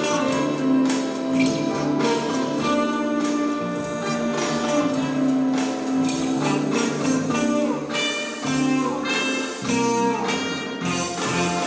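Live band playing an instrumental jazz-funk number: electric guitar, saxophone, keyboard and an electronic drum kit keeping a steady beat.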